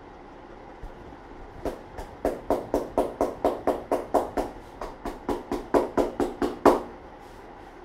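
Hands striking a head in a percussive head massage: a fast run of about twenty sharp slaps, roughly four a second, starting about a second and a half in and lasting about five seconds.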